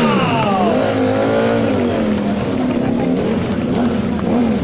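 Ducati sport bike engine revving under a stunt rider, its pitch dropping at first, then rising and falling again and again, with a quick even up-and-down wobble near the end.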